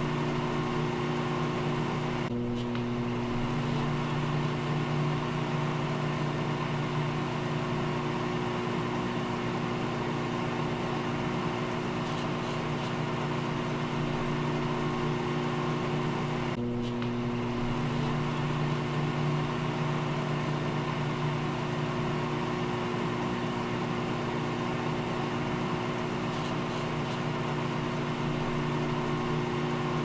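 Microwave oven running: a steady electrical hum with a low buzz, briefly breaking about two seconds in and again about seventeen seconds in.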